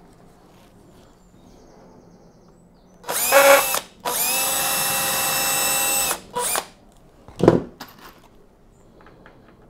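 Cordless drill/driver fixing a stair tread to its support block: a short burst with changing pitch about three seconds in, then a steady run of about two seconds and a brief final burst. A single loud knock follows about a second later.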